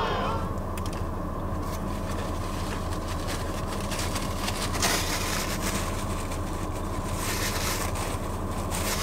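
Steady hum of a car idling, heard inside the cabin, with a few brief soft noises of chewing and rustling over it, one a little louder about five seconds in.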